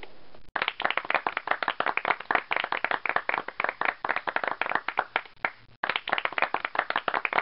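A group of people clapping: a dense run of claps starting about half a second in, with a brief break near six seconds.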